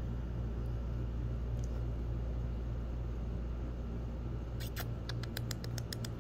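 Chihuahua puppies at play, with a quick run of about ten tiny high squeaks over a second and a half, starting about four and a half seconds in. A steady low hum underlies it.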